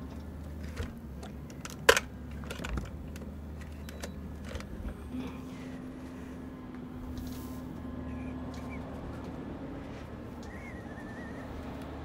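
Clicks and knocks of plugs and switches being handled on a bench of power equipment, the loudest about two seconds in, over a steady low electrical hum; a faint steady tone joins from about five to ten seconds in.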